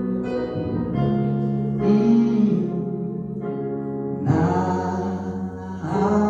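Church praise music: sustained keyboard chords that change every second or few, with voices holding long sung notes between the lyric lines.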